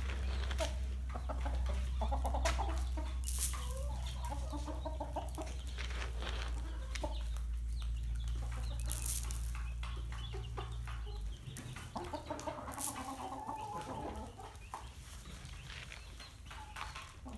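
Hens clucking as they peck at feed pellets, with scattered short sharp taps. A low steady hum underneath stops about two-thirds of the way through.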